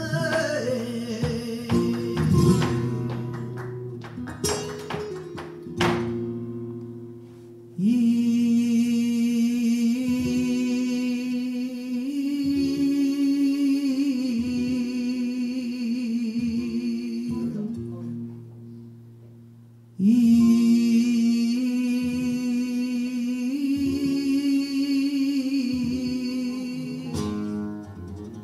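Flamenco song: strummed flamenco guitar chords for about eight seconds, then a woman sings long, wavering held lines in phrases, with a short pause about two-thirds of the way through.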